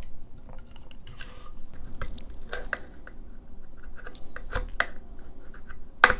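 Irregular small scrapes and clicks as foam filler is picked and cut out of a hollow plastic rifle buttstock with a hand tool, with a louder knock about six seconds in.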